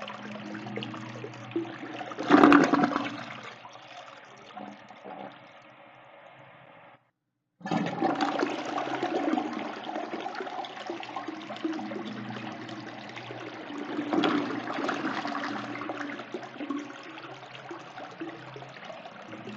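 Toilet flushing: a sudden rush of water about two seconds in that fades away, then after a brief total silence a second flush starts loudly and keeps running, swelling again partway through.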